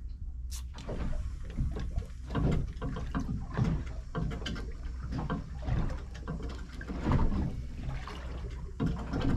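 Water slapping against a small boat's hull, with irregular knocks and clatter from the boat, over a steady low hum.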